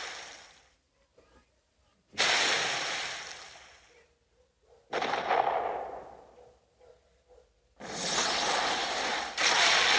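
Godzilla (2014) creature sound effect: a series of loud, hissing, breath-like blasts. Each starts suddenly and fades over a second or two, the first about two seconds in and the next about five seconds in. A longer blast comes near the end and swells again just before it stops.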